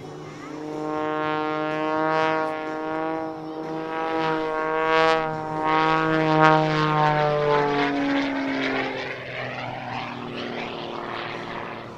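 Extra 330SC aerobatic plane's propeller and six-cylinder Lycoming engine droning as it flies by: a steady buzzing tone that swells, then drops slightly in pitch and fades as it moves away.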